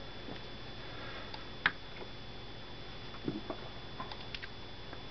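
A few faint, small clicks and ticks over a steady low hiss with a faint high whine, the sharpest click about one and a half seconds in and a cluster of smaller ticks past the middle.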